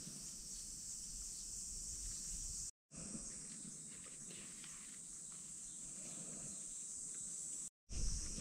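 Insects droning steadily at a high pitch, over faint rustling of a nylon guy rope being untied and pulled through its adjuster. The sound cuts out briefly twice, about three seconds in and near the end.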